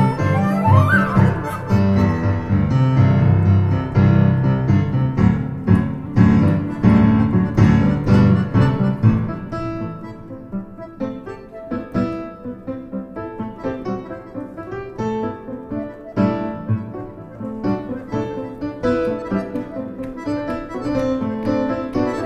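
Improvised music led by a Kawai stage piano, with a quick upward glide about a second in. Full low chords fill the first half, then the playing turns softer and sparser from about ten seconds on.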